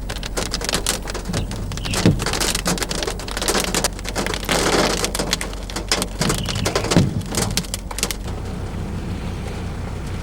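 Heavy thunderstorm rain pelting onto a surface close to the microphone, a dense patter of hard drops over a steady low hum. The pelting stops suddenly about eight seconds in, leaving only the hum.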